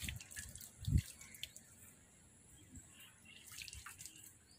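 Milk squirting in short spurts from a water buffalo's teats into a steel pail during hand-milking, with a low thump about a second in.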